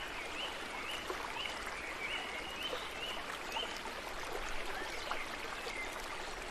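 Flowing stream water with a steady rush, and over it a run of short high chirps, about two a second, that fade out about halfway through.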